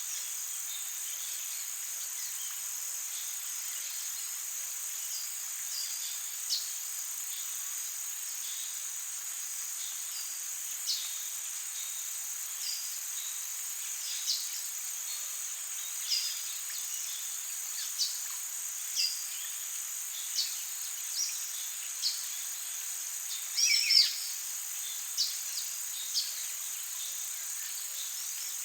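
Rainforest ambience: a steady, high-pitched chorus of insects with short bird chirps every second or two, and a louder flurry of calls about four-fifths of the way through.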